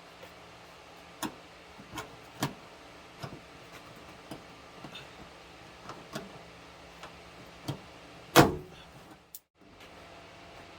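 Interior plastic trim panel of a Scion xB rear hatch being pulled off: scattered clicks and knocks of the panel and its clips, with one loud knock about eight seconds in.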